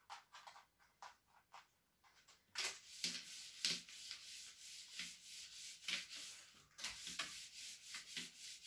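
A cloth rag wiping the slats of horizontal window blinds: repeated rubbing strokes with light clicks of the slats, starting about two and a half seconds in.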